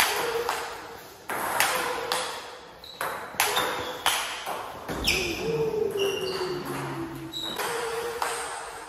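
Table tennis rally: the celluloid-type plastic ball clicks off the rackets and the table in quick exchanges. The clicks echo in a large hall.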